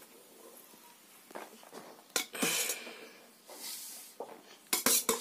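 Metal spoon scraping and knocking against a steel cooking pot as cooked rice is scooped out and served, with a scrape a little past halfway and a quick cluster of sharp clinks near the end.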